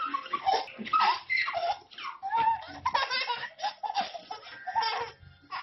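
A baby laughing in a string of short, high-pitched bursts.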